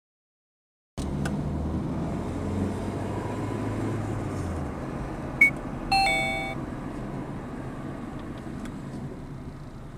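After a second of silence, engine and road noise inside a car moving in traffic. About five seconds in there is a sharp click, then a short two-tone car horn beep.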